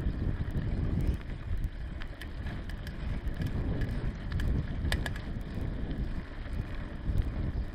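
Bicycle riding over a bumpy grass track: steady wind and tyre rumble on the camera's microphone, with scattered sharp clicks and rattles from the bike jolting over the ground.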